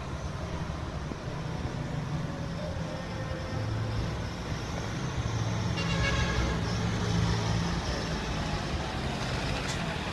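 Heavy military trucks driving by, their engines running low and growing louder around the middle before easing off.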